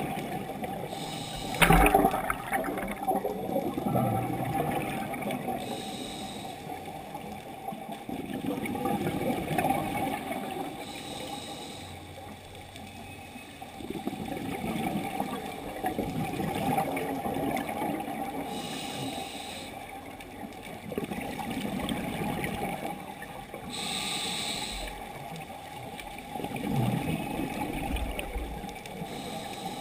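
Scuba diver breathing through a regulator underwater: a short hiss of inhaled air every five or six seconds, each followed by the bubbling rush of exhaled air. A sharp click sounds about two seconds in.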